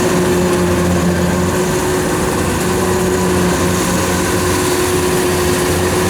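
Kubota DC93 combine harvester's diesel engine running steadily at close range, with a constant hum and a steady whine over it.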